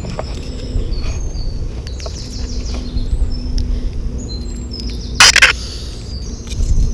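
Small birds chirping in short high calls over a steady low rumble, with one loud brief rustle a little after five seconds in.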